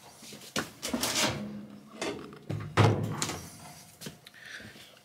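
Top panel of a Samsung top-load washer being lifted and pivoted round on the cabinet: a series of plastic-and-metal knocks and scraping, the loudest knock nearly three seconds in.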